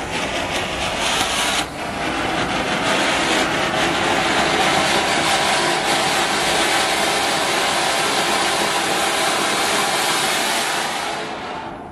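A large Standard Fireworks Colour World anar (ground fountain firework) burning with a loud, steady hiss as it sprays sparks. It builds up over the first two seconds and dies away in the last second.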